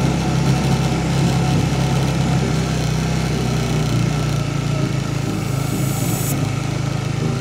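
Honda CBR150R's single-cylinder four-stroke engine running at steady revs as the bike is ridden across loose sand.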